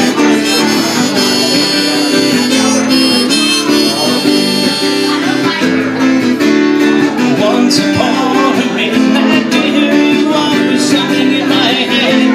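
Late-1970s Guild G-41 acoustic guitar strummed in a steady rhythm, with a harmonica playing a melody over it. The harmonica is most prominent for about the first five seconds, after which the guitar strumming comes forward.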